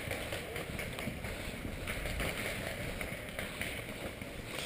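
Wind buffeting the microphone of a GoPro action camera, an uneven low rumble, with a few faint clicks scattered through it.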